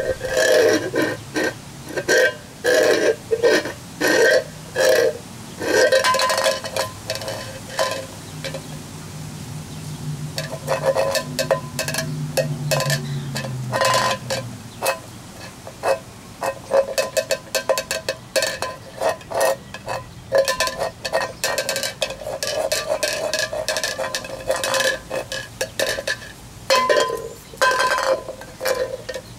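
A cockatoo works its beak inside an open tin can, with rapid clattering knocks and scrapes of beak on metal and the can scraping on concrete. The hollow can rings and booms with each hit. The knocks come in clumps about twice a second at first and turn into a dense, continuous clatter later on.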